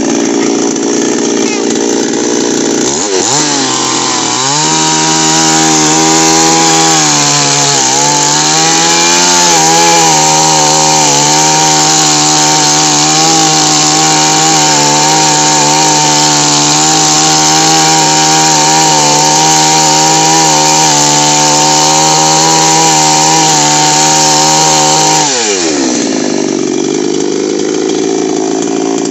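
Two-stroke petrol chainsaw running at high revs, then cutting into a tree stump. About three seconds in, the engine note drops and holds steady under load as the chain bites the wood, dipping once more around eight seconds. About twenty-five seconds in, the note rises again as the bar comes free.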